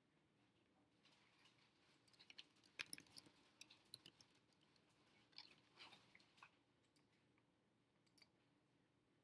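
Typing on a MacBook Pro laptop keyboard: a quick run of light key clicks over a few seconds, then a single click about eight seconds in.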